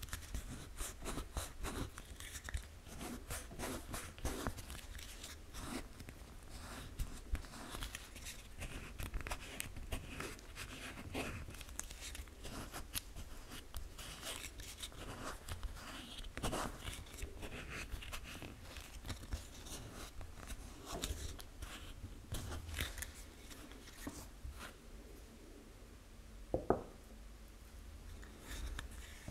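Fingers handling and rubbing a 3D-printed plastic badge, making a run of small irregular scratching, rustling and clicking noises, with one louder knock near the end.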